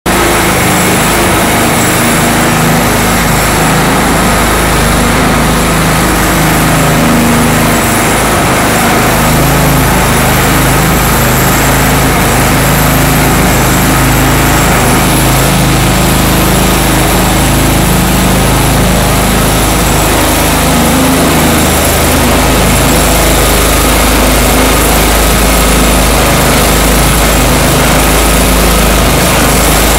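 Gasoline-engined walk-behind diamond floor grinder running steadily and loudly, its small engine droning while the spinning diamond heads grind epoxy off a concrete floor.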